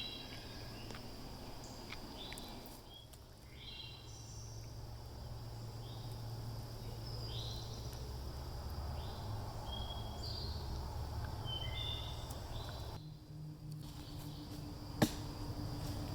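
Woodland ambience: a bird giving short chirping notes about once a second over a steady high insect drone and a low wind rumble. A single sharp click comes near the end.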